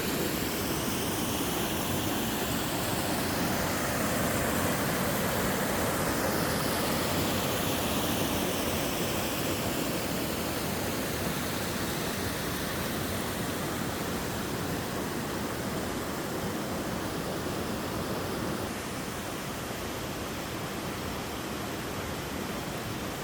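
Mountain stream and waterfall water rushing steadily, an even noise that drops a little in level about nineteen seconds in.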